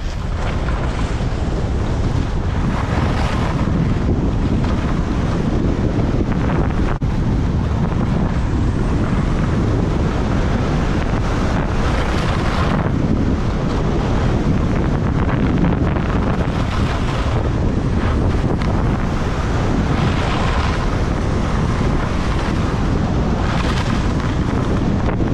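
Loud, steady wind noise buffeting the microphone.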